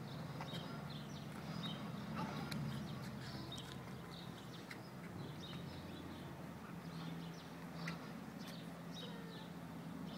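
Small birds chirping in short, scattered calls over a steady low hum of outdoor background.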